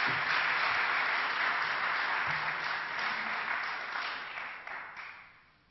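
Audience applauding at the end of a talk, a steady dense clapping that dies away near the end.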